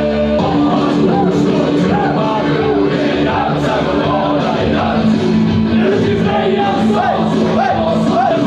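Rock music with a sung vocal line and sustained backing tones, playing steadily.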